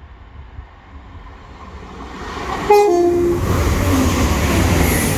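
A train approaching and passing at speed sounds its horn in one short blast about two and a half seconds in, the pitch stepping down partway through. The loud rush and rumble of the passing train builds up to the blast and carries on after it.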